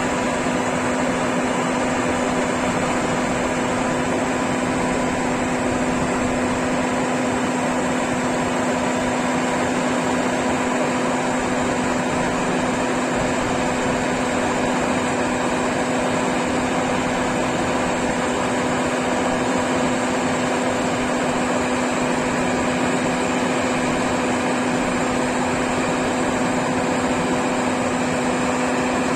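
Rice combine harvester running steadily: an even machine hum with a held pitch over a dense mechanical noise, unchanging throughout.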